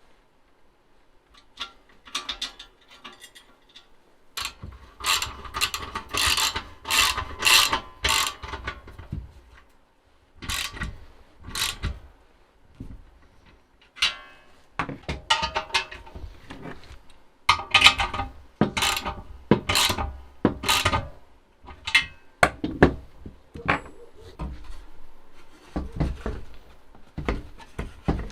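Hand tools and metal bumper parts clicking and knocking in irregular bursts while a chrome car bumper is being assembled, thickest a few seconds in and again past the middle.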